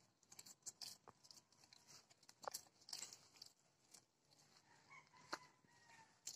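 Near silence broken by scattered faint clicks and taps at irregular intervals, with a faint thin whistle-like tone about five seconds in.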